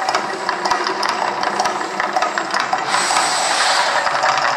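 Flame jets and fountains of the Mirage volcano show: a steady rushing hiss with rapid crackling clicks, swelling into a louder high hiss about three seconds in as a fresh burst of fire goes up.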